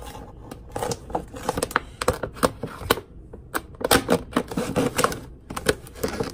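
Clear plastic packaging of a boxed figure being handled and turned over, giving many irregular clicks and crackles of the plastic.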